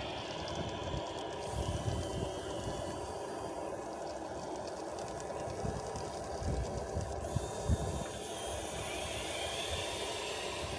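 Electric drive and actuator motors of a 3D-printed RC wheel loader running with a steady whine, with scattered low thumps and rattles from the machine.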